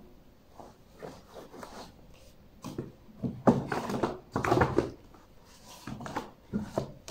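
Books and magazines being handled: paper rustling, pages flicking and books knocking against each other and the shelf in irregular bursts, the busiest stretch about halfway through.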